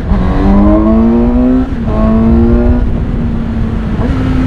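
Inline four-cylinder engine of a Suzuki GSX-S750 motorcycle accelerating on the road, its pitch climbing and then dropping sharply at a gear change a little under two seconds in. After that it runs at a fairly steady pitch, with a small step up near the end, over low wind rumble.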